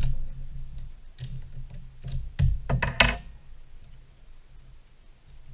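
Clicks and knocks of a spark plug wrench on a Stihl MS180 chainsaw as the spark plug is loosened and taken out, bunched in the first three seconds.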